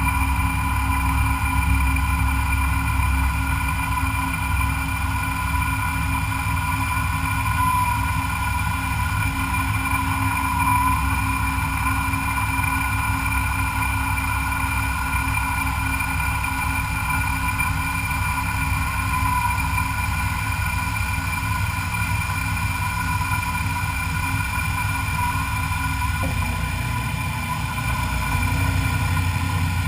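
CNC machine running steadily, with a constant high whine over a low machine hum; the low hum changes pitch about 26 seconds in.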